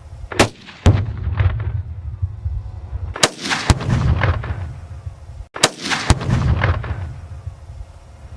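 Rifle shots and Tannerite exploding targets going off, three times: each time a sharp crack is followed about half a second later by a second bang and a long low rolling rumble that echoes away.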